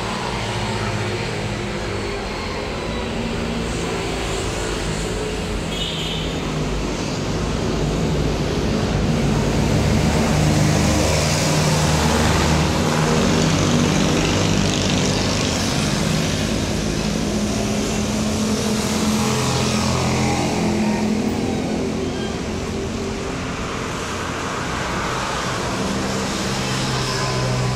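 Road traffic going by below: motorcycle and car engines rising and fading as they pass, loudest about twelve and twenty seconds in.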